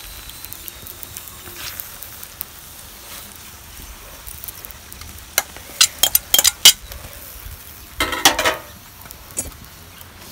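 Metal utensils clinking and scraping against cookware, over a low steady hiss. A quick run of sharp clinks comes about halfway through, and a louder scrape about two seconds later.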